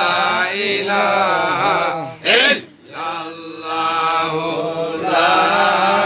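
A man's voice chanting a devotional zikir (Islamic remembrance chant) in a long, wavering, melismatic line. A little over two seconds in, a brief loud burst breaks the chant, followed by a short pause before the chanting resumes.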